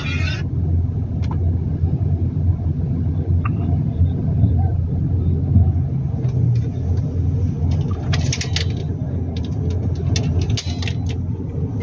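Steady low rumble of a car on the road, heard from inside the cabin, with a few sharp clicks or taps in the second half.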